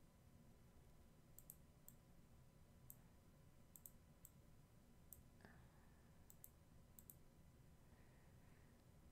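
Near silence with faint, scattered computer mouse clicks, about ten, some in quick pairs.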